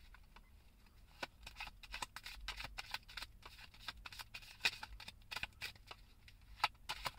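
A deck of cards being shuffled and riffled by hand: a run of light, irregular clicks and snaps of card edges.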